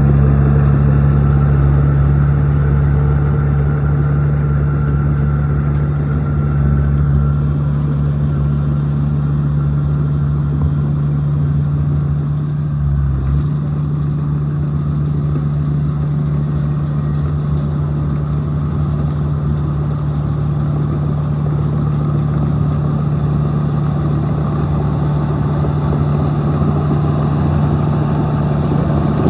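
Bulldozer's diesel engine running steadily, its pitch shifting slightly about thirteen seconds in.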